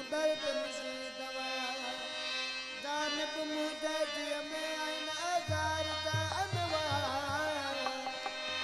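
Instrumental song introduction: a melody of bending, sliding notes over held steady tones, with deep low notes joining about five and a half seconds in.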